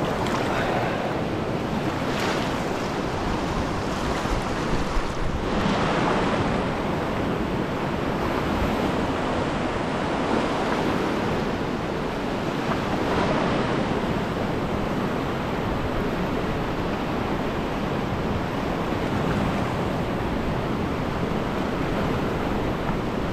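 Fast mountain river rushing steadily through rapids, a continuous dense wash of white water with a few brief louder swells.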